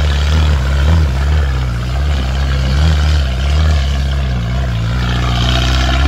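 Engine of a small homemade off-road tractor running under load as it drives through deep mud, its pitch rising and falling a little.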